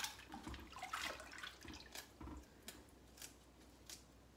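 Hands washing mustard greens in a bowl of water in the sink: soft splashes and drips, busiest in the first two seconds, then a few faint ticks.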